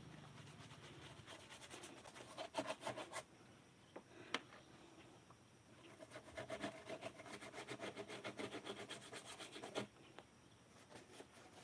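Quick, faint rubbing strokes on wood, repeated back and forth in two runs: a short one about two and a half seconds in and a longer one from about six seconds to nearly ten seconds. A single sharp tick comes a little after four seconds.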